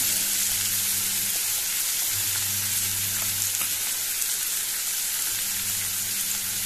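Diced potato, onion, tomato and green chillies frying in oil in a pan: a steady sizzle, with a low hum that comes and goes.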